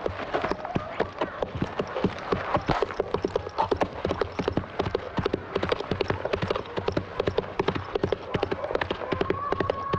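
Hoofbeats of running horses: a quick, uneven clatter of many hoof strikes.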